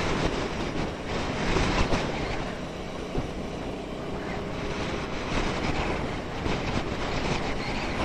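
Ducati Scrambler Sixty2's air-cooled 399 cc L-twin engine running at a steady cruise, under heavy wind noise on the microphone.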